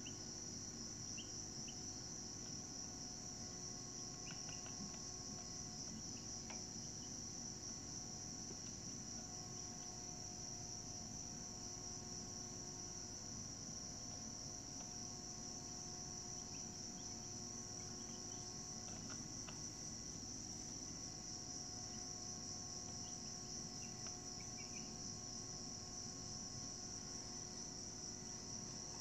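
Steady high-pitched insect trill, unbroken throughout, with a few faint short chirps now and then.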